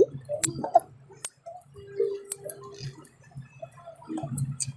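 Small plastic drink bottles being handled: scattered light clicks and taps as bottles are picked up and set down and a screw cap is twisted open.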